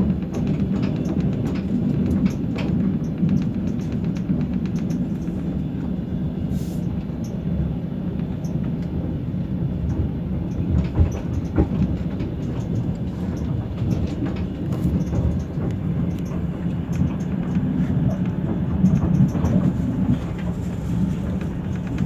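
Passenger train running, heard from inside the carriage: a steady low rumble, with scattered clicks from the wheels on the rails.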